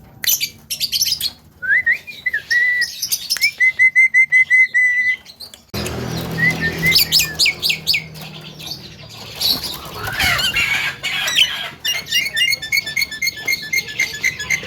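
Javan myna calling: harsh chattering mixed with runs of short whistled notes repeated about four times a second. A low steady hum comes in suddenly about six seconds in.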